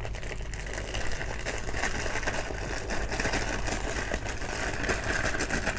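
Thin plastic bag crinkling and rustling as it is handled and filled with soft bait dough, with a light spoon scraping against a plastic bowl. A low steady hum runs underneath.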